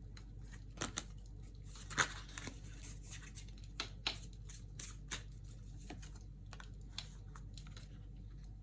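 Oracle cards being handled on a table: scattered light clicks and short rustles as cards are drawn and laid out, with two sharper clicks about one and two seconds in.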